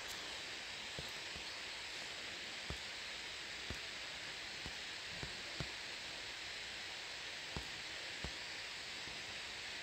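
Steady background hiss, likely the phone microphone's noise, with scattered faint clicks every second or so.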